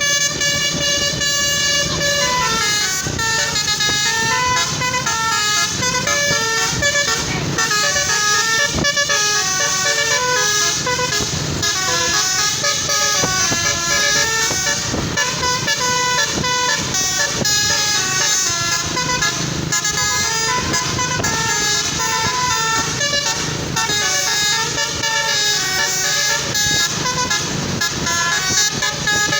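A tour bus's Basuri 'telolet' multi-tone horn plays a fast melody nonstop, its notes stepping up and down in quick runs.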